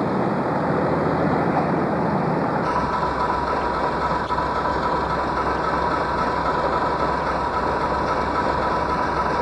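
Train noise on a station platform: a rushing rumble as a loco-hauled train pulls away. About three seconds in, this gives way to a steady low engine hum with a constant high whine, as from a train standing with its engine running.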